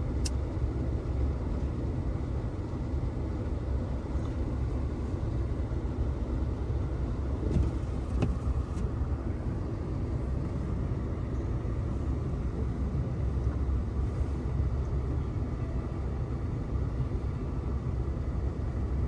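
Steady low rumble of an idling car engine, with a few faint clicks about eight seconds in.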